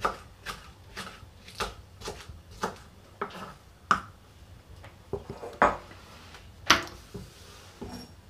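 Kitchen knife chopping green peppers on a thick wooden cutting board, steady knocks about twice a second. In the second half the chopping stops and a few irregular, louder knocks and clatters follow.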